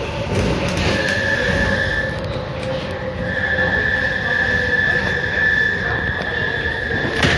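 Interior of an SNCF Z5300 electric multiple unit running into a station, with a steady rumble and a high-pitched squeal from its running gear as it slows. The squeal comes in about a second in, breaks off briefly, then holds. A sharp knock comes near the end.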